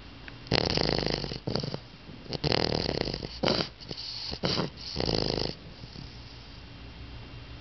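English bulldog puppy snoring loudly: about six snores of uneven length, some about a second long and some short and quick, then the snoring stops about five and a half seconds in.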